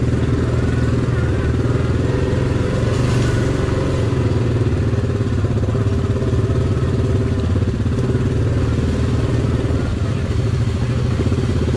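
ATV engine running steadily as the quad rolls slowly along a trail.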